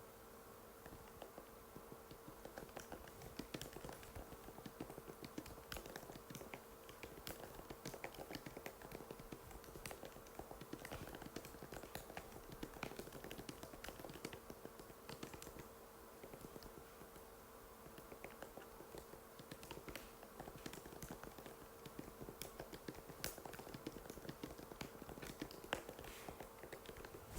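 Typing on an Apple MacBook butterfly keyboard: rapid light key clicks in fast runs, thinning out for a few seconds past the middle, over a faint steady hum.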